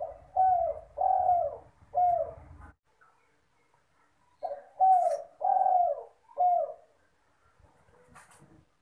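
Spotted dove (derkuku) cooing: two phrases of three or four arched coos each, with a pause of about two seconds between them.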